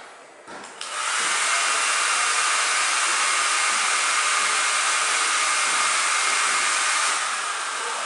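Handheld hair dryer switched on about a second in, then blowing steadily with an even rushing hiss. It gets a little quieter near the end.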